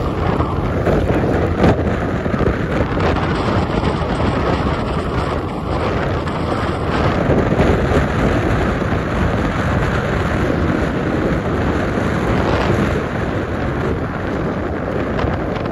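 Steady wind rumble on the microphone from travelling along a road, with a vehicle's running noise underneath.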